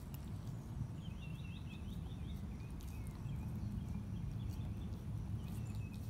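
A dog licking and nosing at a raw whole lake herring, with a few soft wet clicks, over a steady low rumble of outdoor background noise.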